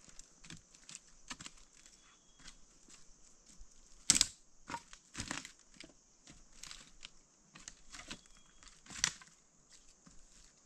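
Snack packet being handled and opened: irregular rustles and crackles, with two louder, sharper sounds about four and nine seconds in.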